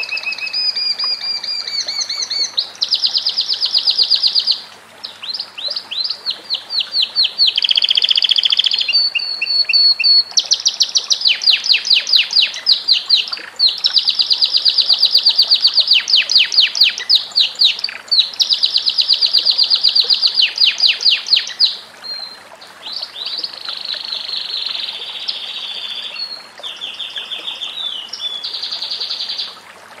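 Domestic canary singing a long, loud song of rapid trills and rolls. Each phrase is a fast run of repeated notes, switching to a new phrase every one to three seconds with only brief breaks.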